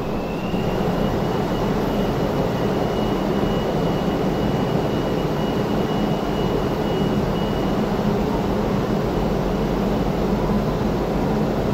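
Steady mechanical hum and rush of a funicular railway station, with a faint high whine that comes in at the start, rises a little and fades out about two-thirds of the way through.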